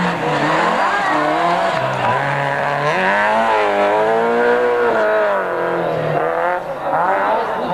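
Peugeot 306 Group A rally car's 2-litre four-cylinder engine revving through a corner at racing speed. The pitch drops at first, climbs and wavers, falls again, then dips briefly and climbs once more near the end as the driver works through the gears.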